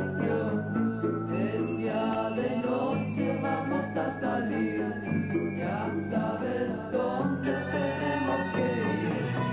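Song: a woman sings the lead with a chorus of voices over a backing band with a steady beat.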